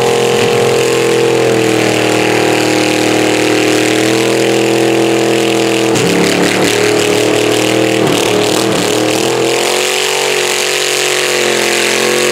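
Rat rod pickup's engine held at high revs during a burnout, the rear tyres spinning and smoking on concrete. The engine note holds steady, then shifts and wavers about halfway through before settling again.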